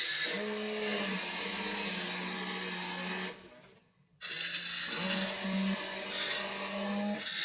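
Small electric motors of a WLtoys RC excavator whirring as it works, a steady hum over a hiss, stepping slightly in pitch. The sound drops out for under a second a little past halfway, then the whir resumes until near the end.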